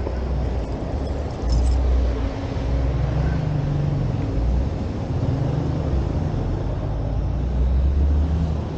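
Motorcycle running while being ridden, its engine note rising and easing, under a heavy low rumble of wind on the camera microphone.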